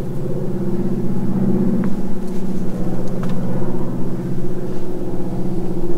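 A motor engine running steadily, a low, even drone.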